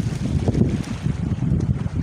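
Wind buffeting the microphone: a loud, uneven low rumble that swells and dips in gusts.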